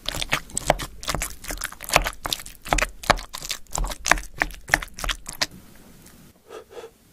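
Wooden spoon knocking and scraping against a ceramic bowl while stirring rice and fried egg, a quick run of clicks about four a second that stops about five and a half seconds in.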